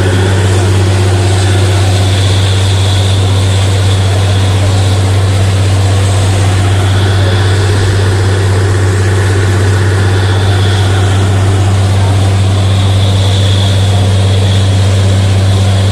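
Borewell drilling rig running: a loud, steady engine drone with a constant low hum and a hiss above it, unchanging throughout.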